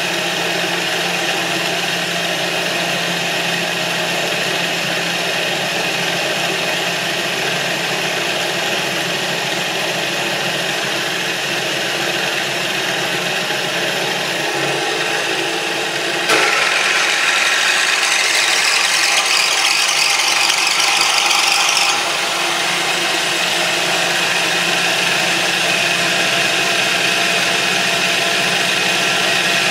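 Ball-bearing motor running: the steel flywheel spins in its current-carrying ball bearings with a steady whirring rattle. About sixteen seconds in the sound turns suddenly louder and brighter for about six seconds, then drops back to the steady running sound.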